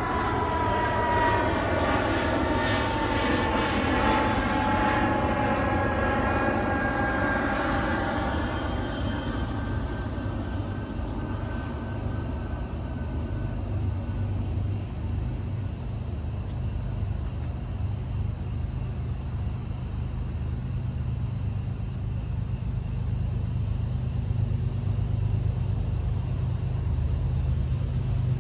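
A passing train receding: a cluster of whining tones slides slowly down in pitch and fades over the first dozen seconds, over a steady low rumble that swells again near the end. Insects chirp in a fast, even rhythm throughout.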